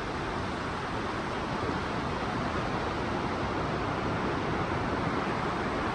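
Steady rushing noise of surf and wind on an open beach, with no distinct events.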